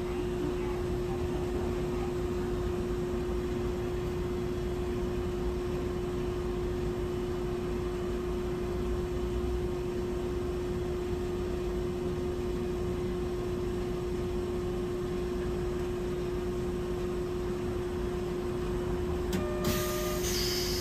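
Steady hum inside a Hankai Tramway 701-type tram: one constant tone over a low rumble. Near the end there is a click and a brief higher tone.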